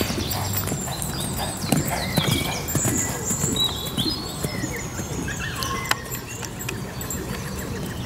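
Hoofbeats of a loose young horse cantering over turf and sand, an uneven run of dull thuds.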